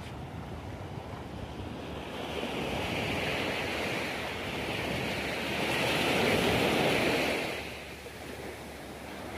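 Sea surf on a sandy beach: waves washing in and out, one building to a peak about six seconds in and then dying away, with wind buffeting the microphone.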